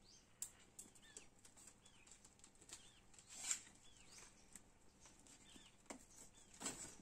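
Near silence, broken by faint scattered clicks and rustles of handling as live prawns are put into a plastic bag, the loudest about halfway through, with a few faint high chirps.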